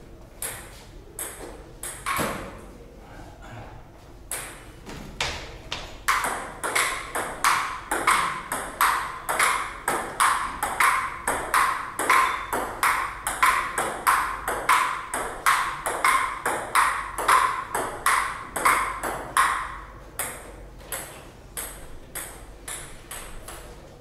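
Table tennis ball clicking: a few scattered bounces, then from about six seconds in a long rally of bat hits and table bounces, two to three clicks a second. The rally ends about 20 seconds in, followed by a few loose bounces.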